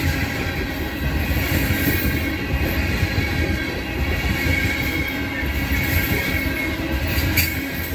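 Freight train of coal gondolas rolling past close by: the steady rumble and clatter of steel wheels on the rails, with a faint high wheel squeal running underneath and a single sharp click near the end.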